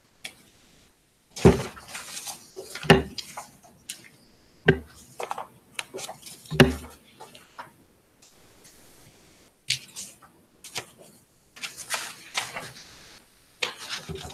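Handling noise on a conference table close to its microphones: several sharp knocks and bumps of hard objects, the four loudest within the first seven seconds, with smaller clicks and rustling of papers in between.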